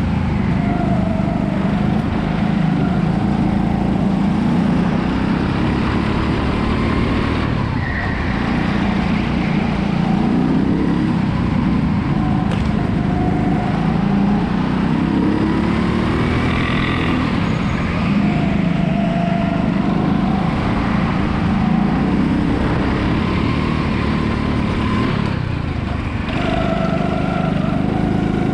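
Go-kart engine heard from the driver's seat, revving up along the straights and easing off into corners, its pitch rising and falling over and over.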